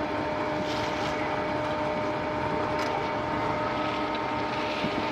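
Diesel locomotive engine idling with a steady hum.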